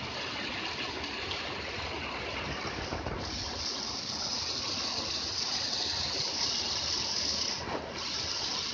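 Storm floodwater rushing and churning down a roadside drain channel in heavy rain runoff, a steady rush of water.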